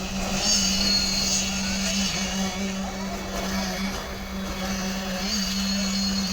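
Concrete mixer truck running with a steady low hum while concrete is poured down its chute.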